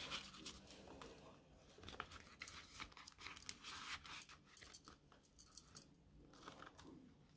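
Faint rustling and crinkling of polymer banknotes and a clear plastic zip pouch in a ring binder being handled, with scattered small clicks.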